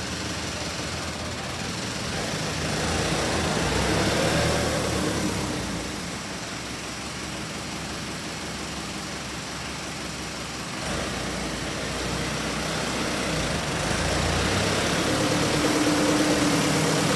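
Kubota M8580 tractor's four-cylinder diesel engine idling steadily, growing louder for a couple of seconds around four seconds in and again near the end.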